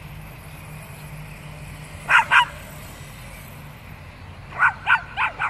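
Small white fluffy dog yapping at a remote-control toy car: two quick sharp barks about two seconds in, then a run of four more near the end.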